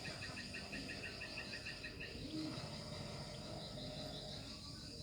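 Insects chirping in rapid, evenly pulsed trills over a steady high whine. One trill stops about two seconds in while a higher one carries on almost to the end.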